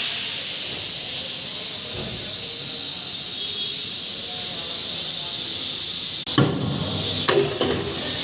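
Steady high hiss of compressed air at a tyre shop, with a few short clattering knocks about six seconds in and again near the end.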